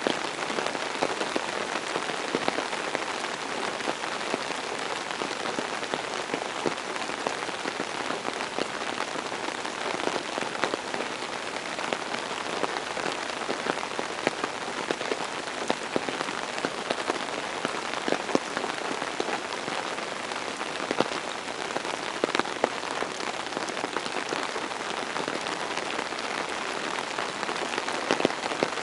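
Steady rain falling, an even hiss with many sharp ticks of individual drops.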